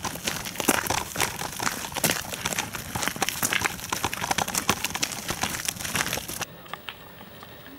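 Front wheel of a Babyjogger City Elite stroller rattling as it rolls: a dense, rapid clatter of small knocks that a repair has not cured. The clatter stops about six and a half seconds in.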